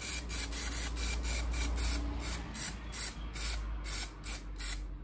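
Aerosol spray-paint can of Dulux Duramax semi-gloss enamel hissing in short, rapid bursts, about three or four a second, as a float body is given a coat of paint.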